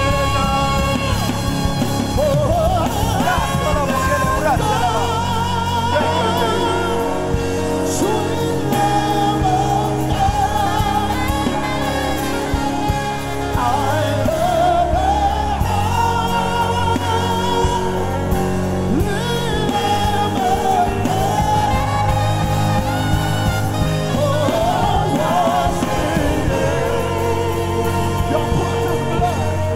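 Live gospel worship music: a lead singer and choir holding long notes with wide vibrato over keyboard and band, with no clear words.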